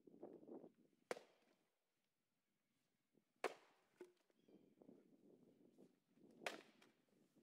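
Axe strikes splitting firewood rounds: three sharp cracks about two to three seconds apart, with a smaller knock after the second. Low rustling of footsteps and shifting wood in between.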